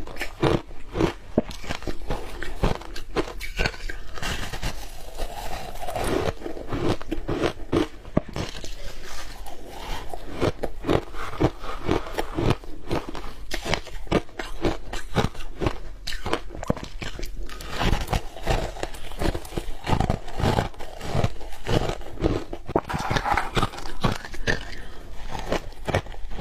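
Close-up crunching and chewing of shaved ice covered with matcha powder: many quick crunches in an irregular run.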